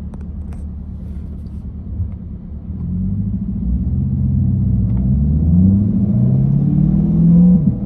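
A car engine rumbling low, then revving up from about three seconds in, its pitch climbing and falling in repeated pulls as it grows louder, before dropping off sharply near the end.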